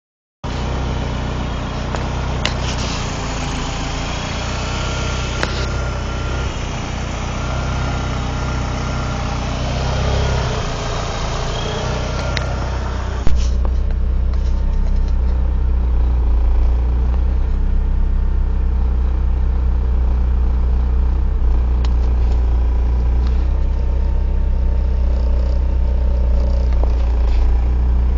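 1995 Mitsubishi Eclipse GST's turbocharged four-cylinder engine idling roughly. About halfway there is a sharp click, after which the idle sounds deeper with less hiss.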